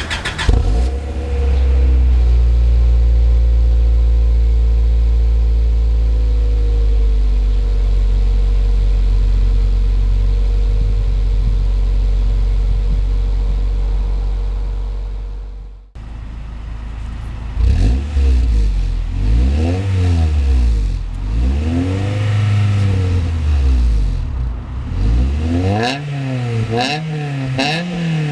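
A 1997 Honda Prelude's 2.2-litre four-cylinder engine, breathing through an Apexi WS2 cat-back exhaust, runs at a steady fast idle that drops lower several seconds in. After a sudden break it is revved over and over, the pitch rising and falling with each blip, and the blips come quicker near the end.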